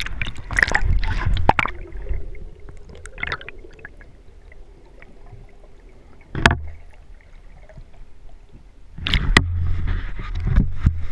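Water splashing and gurgling around a submerged camera as it goes under beside a boat's hull. Then a muffled underwater stretch with a faint steady hum and a single sharp knock midway, and more splashing near the end as the camera comes back out of the water.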